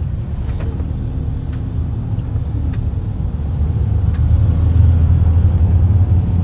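Low road and engine rumble inside a moving car's cabin, growing louder about four seconds in, with a few faint clicks.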